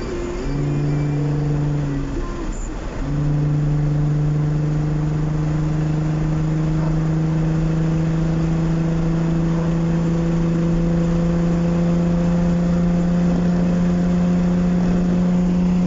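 Nissan 350Z's 3.5-litre V6 engine and exhaust pulling under acceleration while driving: a short pull, a brief break about two seconds in, then one long steady pull whose pitch rises slowly.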